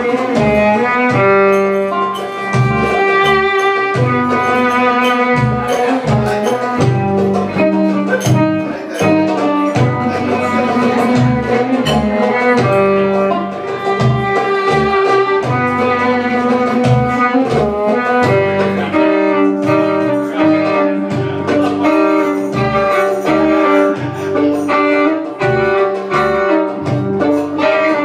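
Live band playing belly-dance music: a violin melody over plucked strings and a steady, repeating bass line.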